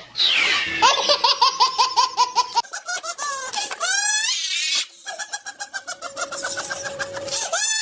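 High-pitched laughter in two long runs of quick, rhythmic ha-ha-ha bursts, with squeaky shrieks between the runs.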